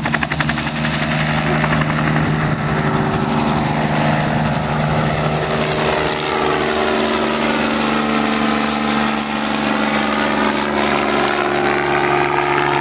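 Helicopter flying in close, its rotor beating rapidly over a steady engine hum; the tone shifts as it passes near, and the sound cuts off suddenly at the end.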